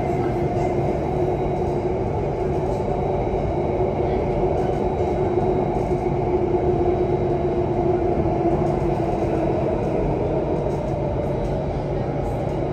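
Alstom Metropolis C830 metro train running at steady speed through a tunnel, heard from on board: an even rumble of wheels on rail with a steady hum over it.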